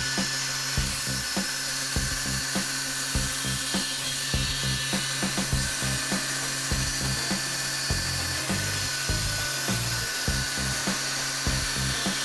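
CNC milling spindle cutting fiberglass laminate (G10) with a quarter-inch carbide composite end mill at about 7,700 RPM, a steady high drill-like whine and hiss of the cut. Background music with a steady beat plays over it.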